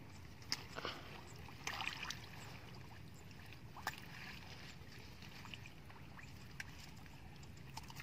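Faint water sloshing around a person wading waist-deep and pulling up water plants by hand, with a few short, sharp splashes.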